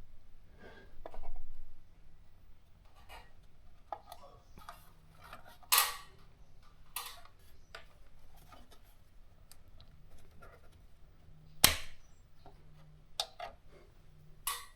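Irregular clicks and knocks of small hard objects being handled, with a duller thud about a second in and sharp clicks about six and twelve seconds in.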